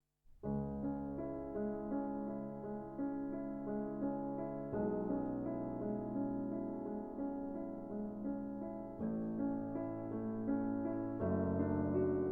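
Background piano music: sustained chords that change every few seconds.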